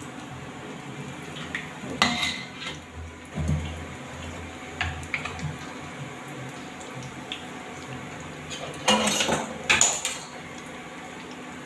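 Bread pakoras deep-frying in mustard oil, a steady sizzle, with a metal utensil clinking against the steel pan a few times and a louder clatter about nine seconds in.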